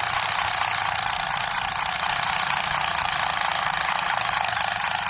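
Battery-powered toy assault rifle's electronic firing sound effect: a steady, continuous rapid machine-gun rattle that holds at one level throughout.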